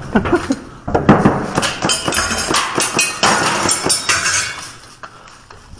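A quick, irregular run of sharp clicks and clacks from an airsoft rifle being fired, with hard knocks mixed in, lasting about three seconds and then fading off.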